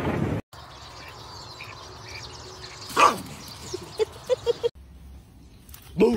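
Dogs barking and yipping: one loud bark about three seconds in, then four short high yips in quick succession, and another short bark near the end.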